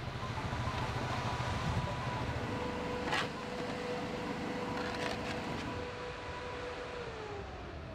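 Steady hum and hiss of machinery, with a low engine-like throb at first and two faint clinks a few seconds in. A steady tone slides down in pitch near the end.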